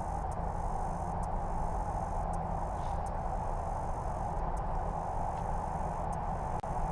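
Steady outdoor insect chorus, with faint irregular ticks about once a second.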